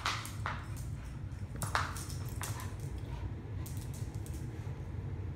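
A dog playing with a toy on a tile floor: a few short scuffs and knocks in the first half, then a few light clicks.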